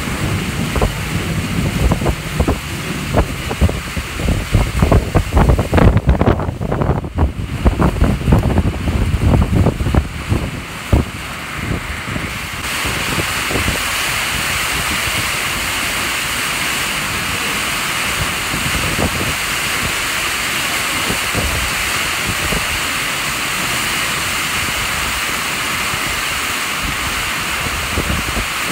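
Storm wind gusting against the microphone with uneven low buffeting for the first part. A little before halfway, a steady, even hiss of heavy rain pouring down takes over.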